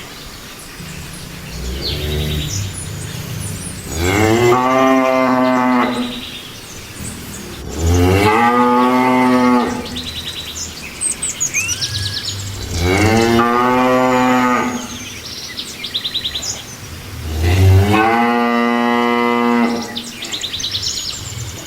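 Cattle mooing: four long, loud moos roughly every four to five seconds, each sliding down in pitch at the start and then held on a steady tone, with a fainter, shorter moo about two seconds in.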